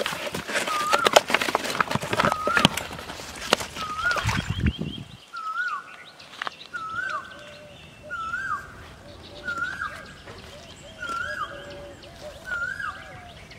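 Wet slaps and knocks for the first five seconds, fitting a fish thrashing in a plastic tub. A bird repeats a short whistled call, a note that dips at its end, about once a second throughout.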